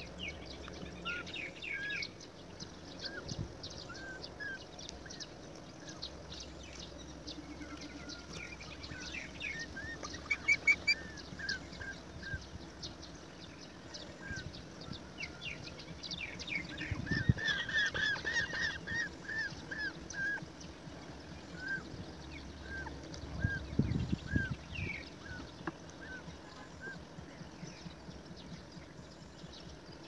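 Roller nestlings calling in the nest cavity: repeated short, harsh call notes, a dense run of them about halfway through, then single calls spaced out, amid many short clicks.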